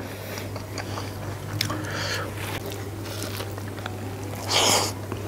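Close-miked chewing and wet mouth clicks of someone eating rice with a soft, runny fried egg by hand. A louder half-second noisy burst comes about four and a half seconds in, over a steady low hum.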